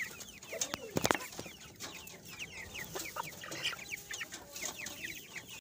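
A flock of young chickens peeping: a dense run of short, falling chirps. A few loud knocks come about a second in.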